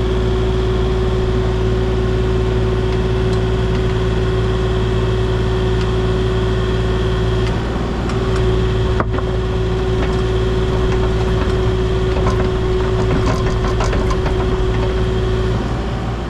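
An engine running steadily under a constant whine, with a few light knocks near the end.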